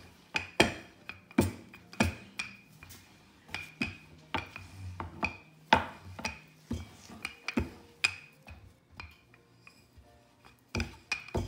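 Wooden rolling pin rolling dough thin on a glass cutting board, clacking against the glass in irregular knocks about one or two a second, each with a short glassy ring.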